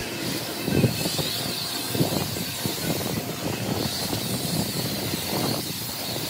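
Self-service car wash pressure gun spraying tyre cleaner onto a car's tyres, a steady noisy spray.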